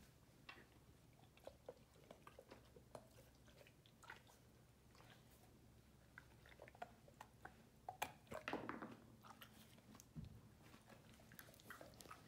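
Great Dane puppy chewing raw carrot: faint, irregular crunches, with a louder flurry about eight seconds in.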